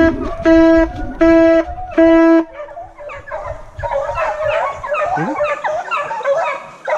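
Hunting horn blown in short, repeated blasts on one note, about four in the first two and a half seconds. From about three seconds in, a pack of hunting dogs is baying and yelping together, the hounds giving tongue on a wild boar.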